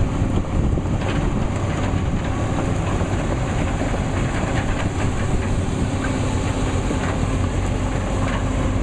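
Volvo EC210B excavator's diesel engine running steadily, a constant low hum.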